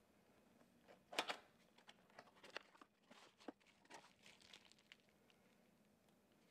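A small cardboard parts box being opened and unpacked, with bubble wrap and a paper instruction leaflet handled: scattered crackles and rustles, loudest about a second in, then fading out.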